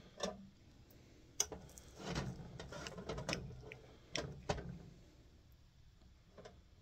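Metal spoon clicking and scraping against glass jars as soft bear grease is scooped out and spooned into a jar: a few sharp clicks and a stretch of scraping in the middle, quieter near the end.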